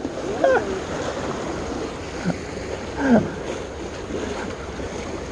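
Steady wash of sea waves against the concrete tetrapods of a breakwater, with two brief murmured voice sounds about half a second and three seconds in.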